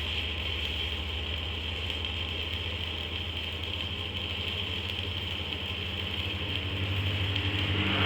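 An engine running steadily, growing a little louder near the end.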